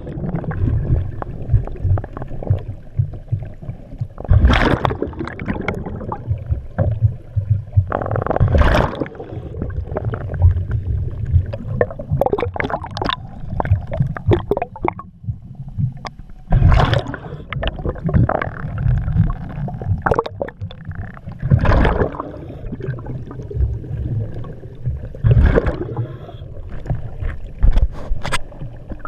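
A scuba diver's regulator breathing underwater: a low bubbling rumble throughout, with a burst of exhaled bubbles about every four seconds.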